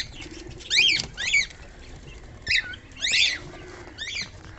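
Repeated short, high-pitched bird chirps, about seven in a few seconds, each dipping and rising in pitch. Beneath them is a faint low pigeon coo.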